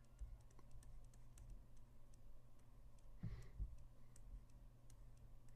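Near silence with a low steady hum and faint, scattered light clicks from computer input while retouching with a pen tablet. A soft breath comes a little past three seconds in.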